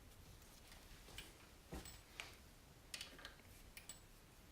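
A handful of faint, scattered clicks of a hand tool as the drain plug with a fresh crush washer is tightened into a motorcycle fork leg.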